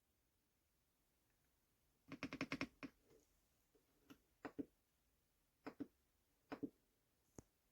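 Keys of an EPOMAKER x Aula F75 gasket-mount mechanical keyboard with Ice Vein switches being typed on. After about two seconds of silence there is a quick run of keystrokes, then single keystrokes about once a second, each a short click pair.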